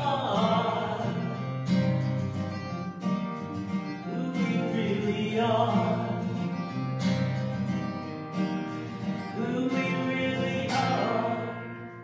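A woman singing a slow worship song to strummed acoustic guitar. Near the end the singing stops and a last strummed chord rings out and fades.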